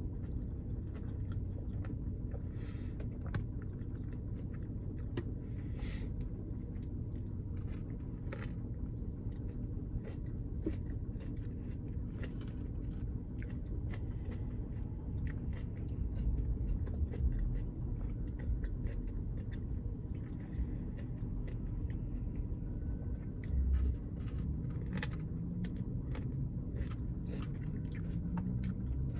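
A person chewing and biting food close to the microphone, with irregular wet clicks and crunches over a steady low hum.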